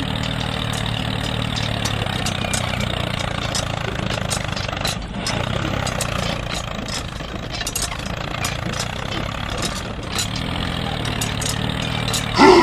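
Tractor engine running steadily at an even, idle-like speed.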